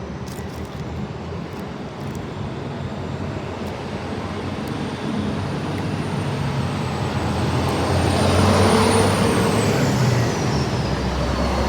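A train running along the platform track, growing louder to a peak about nine seconds in, with a low hum and a high whine that rises and then falls.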